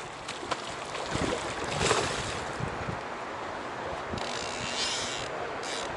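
Hooked salmon splashing and thrashing at the river surface, loudest about two seconds in, with wind rushing over the microphone.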